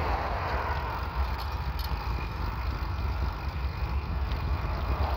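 Steady wind buffeting on the microphone and tyre rumble from a bicycle rolling over cracked asphalt, a low continuous rumble with hiss above it.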